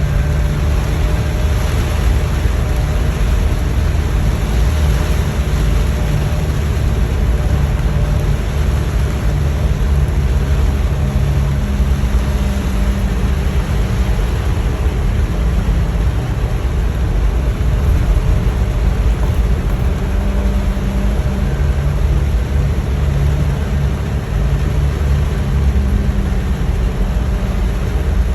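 A car being driven on a wet road in heavy rain: a steady low rumble of engine and tyres under an even hiss of rain and spray.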